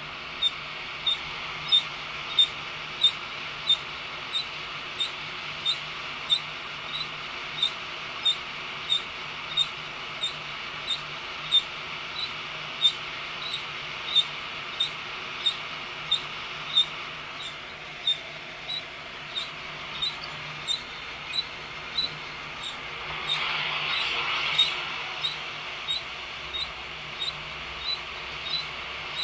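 Drill-driven stainless sifter drum of a heat-gun coffee roaster turning, giving a short squeak about every 0.6 s, once per turn. Under it is the steady rush of hot air and tumbling beans, which swells louder for a couple of seconds near the end. The beans are still pale, with no first-crack popping yet.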